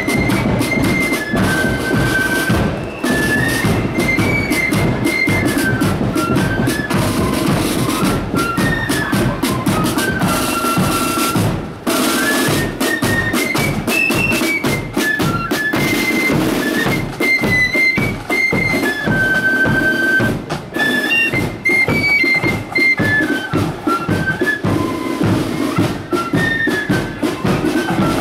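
Marching flute band playing a tune: flutes carry a high melody over fast side-drum rolls and a steady bass drum beat.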